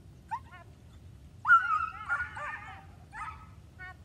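A dog giving a series of short, pitched barks and yips with rising-and-falling pitch while running an agility course: two brief yips near the start, a louder string of barks about a second and a half in, and a couple more short ones near the end.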